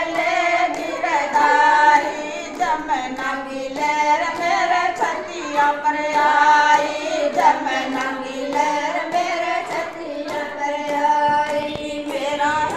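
A Gujari folk bhajan (Hindi devotional song) sung in long, bending, held notes, over light rhythmic percussion.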